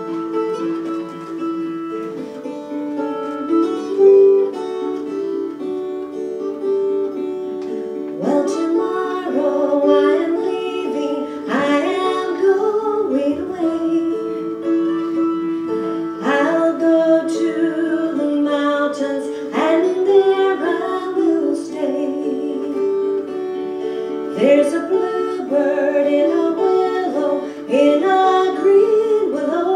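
Acoustic guitar and mountain dulcimers playing a folk song, with steady held notes underneath. A woman's singing voice comes in about eight seconds in.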